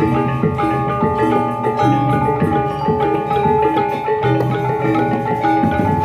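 Balinese gamelan ensemble playing: fast, dense strikes on a row of bronze kettle gongs (reyong) and metallophones, with struck tones ringing on over the busy rhythm.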